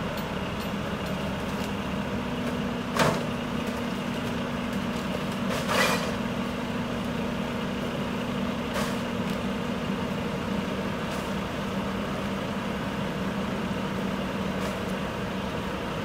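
Diesel engine of a garbage truck idling steadily while bags and boxes are thrown by hand into its front-mounted Curotto-Can, with two sharp thuds about three and six seconds in and a lighter one shortly after.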